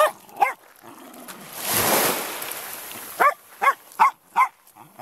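A wire-haired Jack Russell terrier barks at the incoming waves: two sharp barks, then a run of four quick barks about three seconds in. Between them comes a rushing swell of noise.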